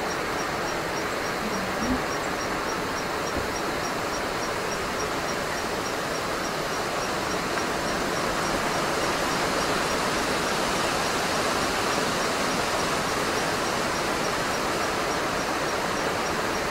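Steady breeze rustling through the leaves of the trees, swelling a little about halfway through, with a single soft knock about two seconds in.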